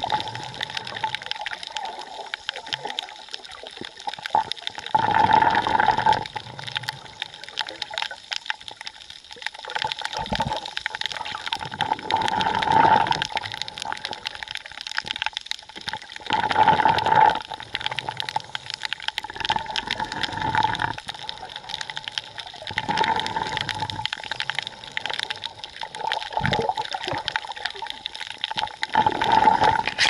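Underwater water noise picked up by a camera housing just below the surface: a steady crackling hiss with louder surges of rushing, gurgling water every few seconds as the diver swims.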